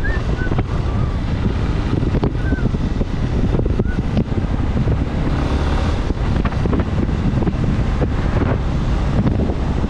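Steady wind noise rumbling on a GoPro 9's microphone as a motorcycle rides along a wet street, with the bike's running noise blended in.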